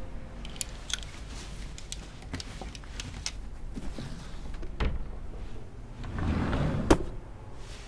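Scattered light clicks and knocks as a wardrobe of clothes on hangers is opened. Then a drawer slides open with a short rushing sound and stops with a sharp knock near the end.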